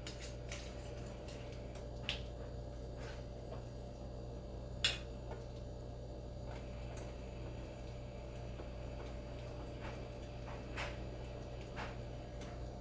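Steady low room hum with a few light clicks and knocks, the clearest about two seconds and five seconds in: a tequila bottle and bar tools being handled while a measure is poured for a shaker.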